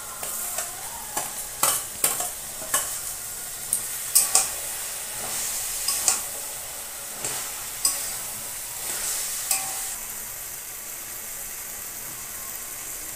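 Taro leaves with broken fish heads sizzling in a metal wok as they are stirred, a steady frying hiss with sharp clicks and scrapes of metal against the pan every second or so, thinning out in the last few seconds. The sizzle is the gravy being cooked down.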